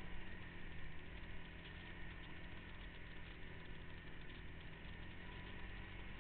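Off-road vehicle's engine running at a steady, unchanging pitch, with no revving.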